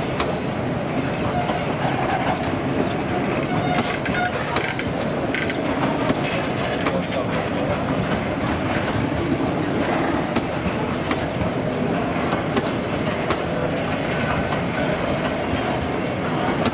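Passenger coaches rolling past along the platform, with a steady rumble of wheels on rail and frequent short clicks of the wheels passing over rail joints.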